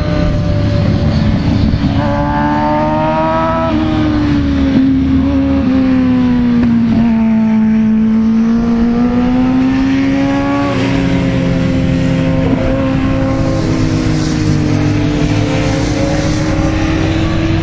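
Sport motorcycle engines running at high revs on a road course. Their pitch rises and falls slowly as the bikes accelerate and slow through the corners, with a sudden step in pitch about eleven seconds in. The sound starts abruptly.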